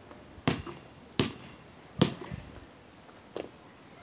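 Basketball bouncing on a concrete driveway: three sharp bounces within the first two seconds, then a fainter knock near the end.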